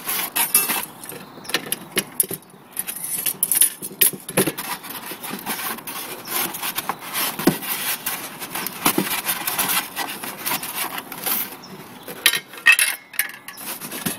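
Handling noise: irregular rubbing and scraping with many light knocks and clicks as a metal kebab rotisserie frame with its skewers is moved about over a styrofoam-lined cardboard box.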